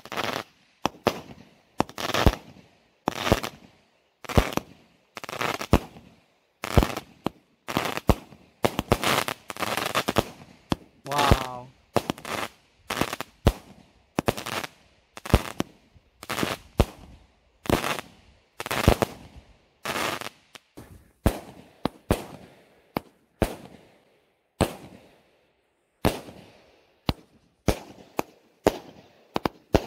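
Consumer fireworks battery (multi-shot cake) firing shot after shot: a rapid string of sharp reports, about one to two a second, each fading quickly, with a couple of short pauses near the end.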